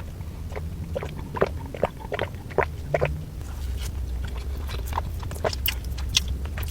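Close-miked chewing of a mouthful of chocolate cake: scattered wet mouth clicks and smacks over a steady low hum.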